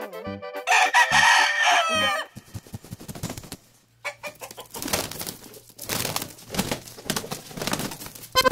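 A rooster crows once, about a second in, for around a second and a half. Then comes outdoor ambience with scattered clicks and a low steady hum.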